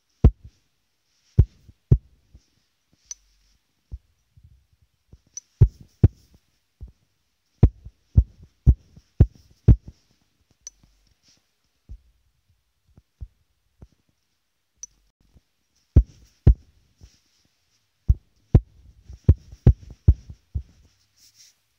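Fingertip taps and thumps on a phone's touchscreen, picked up through the phone's own microphone while drawing: irregular dull knocks, some single and some in quick runs of three or four, with a faint scratchy hiss between them.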